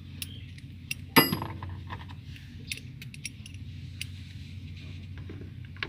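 Kawasaki CT125's single-cylinder engine idling steadily, with a few sharp metallic clinks over it, the loudest about a second in with a brief ring.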